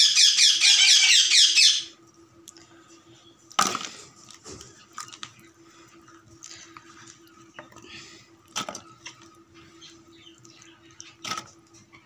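A parrot screeching in a loud, rapid run for about two seconds at the start. Then a few sharp knocks as cut okra pieces drop into an aluminium pot, over a faint steady hum.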